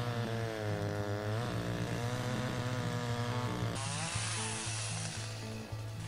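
Gas chainsaw cutting into a felled log, its engine pitch dipping and rising under load. It revs high a little under four seconds in and dies away about a second later. Background music plays throughout.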